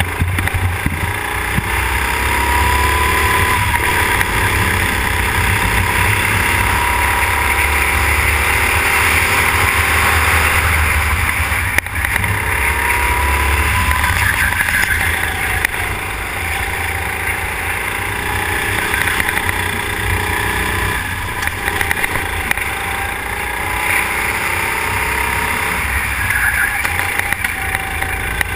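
Go-kart engine running hard, its pitch climbing several times as it pulls along the straights and dropping briefly where the driver lifts off for corners, with wind rumbling on the kart-mounted camera's microphone.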